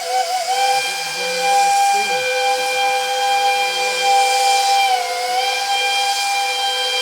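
Steam locomotive chime whistle blowing one long chord of several notes over a hiss of steam. About five seconds in, all the notes sag briefly in pitch together, then come back.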